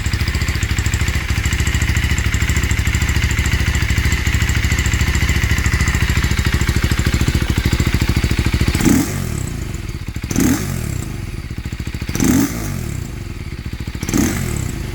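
2024 KTM Duke 390's single-cylinder engine idling steadily through a Barrel Rogue 2.0 slip-on exhaust with its dB killer installed. About nine seconds in it is revved in four short throttle blips, each rising and falling quickly.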